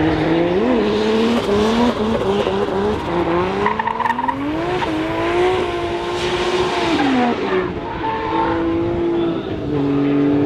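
Drift car's engine revving up and down as it slides through a corner, over the screech of its tyres; the engine note falls about seven seconds in, then holds steadier.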